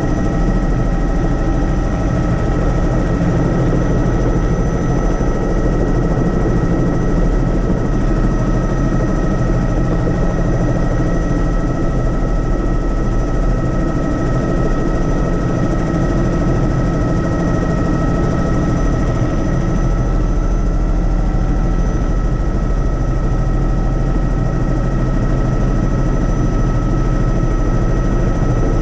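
Helicopter in flight: a steady, unbroken drone of rotor and engine, heaviest in the low end, with a few thin high whining tones held constant over it.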